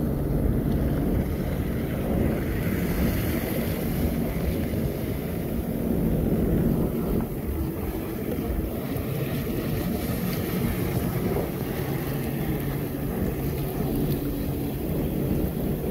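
Watercraft engine running steadily underway, a low even hum, with wind buffeting the microphone and water rushing past the hull.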